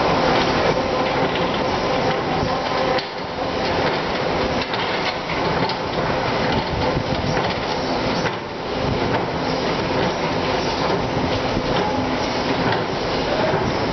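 Escalator running: a steady mechanical hum with the rattle and clatter of the moving steps.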